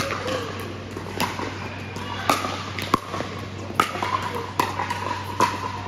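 A fast pickleball rally: sharp pops of paddles striking the hard plastic ball, about seven in quick succession, roughly one every 0.8 seconds.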